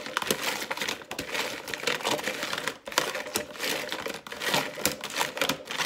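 Rock crab pieces in their shells clattering and scraping against each other and a plastic tub as hands massage seasoning into them: a dense, irregular run of clicks and rustles.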